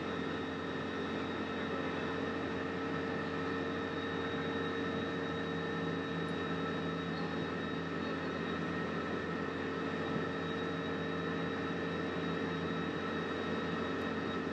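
Side-by-side utility vehicle's engine running at a steady speed with a constant drone, under an even rush of wind and tyre noise.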